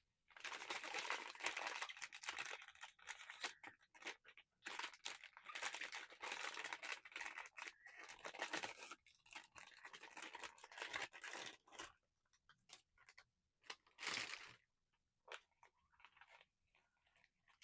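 Blind-box packaging being torn open and crinkled by hand: dense tearing and rustling for most of the first twelve seconds, then scattered handling clicks and one short rustle about two seconds later.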